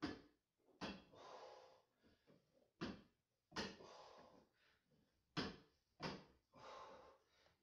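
Plate-loaded leg-curl arm of a home weight bench knocking at each repetition, with a hard exhale after each; three reps, each with two knocks close together, about two and a half seconds apart.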